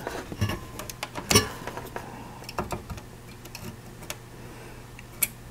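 Light clicks and small taps as a multimeter test probe is handled and set against a circuit board, over a steady low hum.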